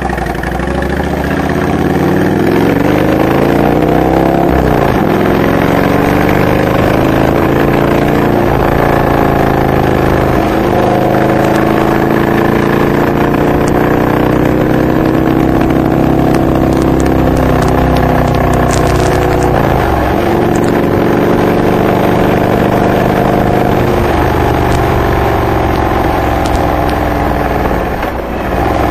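Honda VTX 1300R's V-twin engine through Hard Krome K2 exhaust pipes fitted with Michael's Resonators baffles, accelerating away and running up through the gears: the pitch rises, then drops at each of several shifts, with a steady cruising stretch between.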